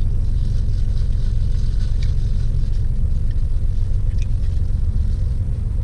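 Car engine idling, a steady low rumble heard from inside the cabin, with a couple of faint light clicks about two and four seconds in.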